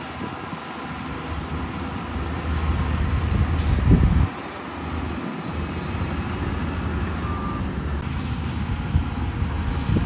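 Shantui crawler bulldozer's diesel engine running hard as the machine pushes soil. It builds over the first four seconds, drops abruptly just after, then carries on steadily. Two short hisses break in, one before the drop and one near the end.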